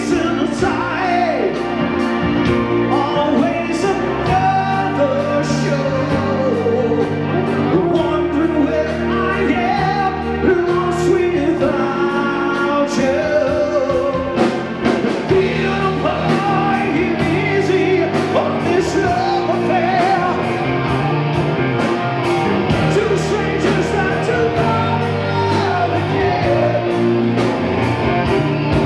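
Live rock band: a male singer over electric guitar, bass guitar and a drum kit keeping a steady beat.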